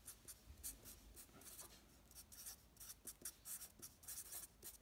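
Faint felt-tip Sharpie marker strokes on paper: a run of short, irregular scratches as capital letters are written one after another.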